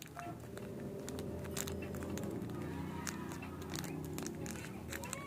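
Soft clicks and crackles of hands working butter slime and clay, over a steady low background hum.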